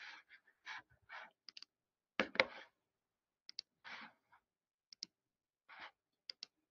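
About a dozen irregular small clicks and short taps, like desk or keyboard noise, heard over a video-call microphone, with dead silence between them. The loudest is a pair of taps a little over two seconds in.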